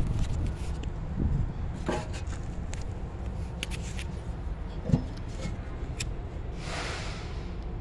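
Steady low rumble of traffic, with scattered clicks and knocks of handling and a hiss about a second long near the end.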